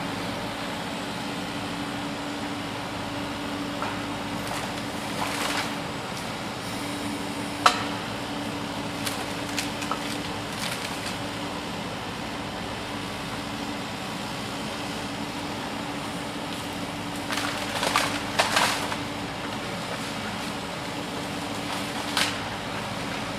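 Steady hum of a toy excavator's small motor, with scattered clicks and rattles of plastic parts and dirt. The sharpest click comes about seven seconds in, and a cluster of rattles follows late on.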